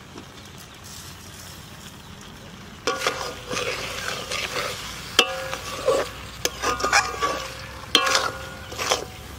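A spatula stirring and scraping a thick, crumbly sweet filling of khoya kheer, date-palm jaggery and sugar as it cooks in a pan, with a faint sizzle. A quieter stretch comes first; the stirring starts about three seconds in, with repeated scrapes and a few sharp knocks against the pan.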